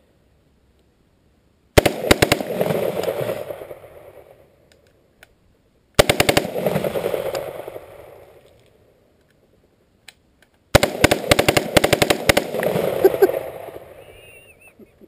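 Semi-automatic rifle being bump-fired in three rapid strings of shots, each a fast ragged burst that rolls off into a long echo. The last burst is the longest.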